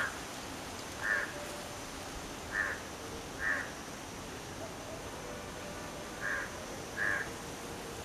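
A crow cawing: six short caws at uneven intervals.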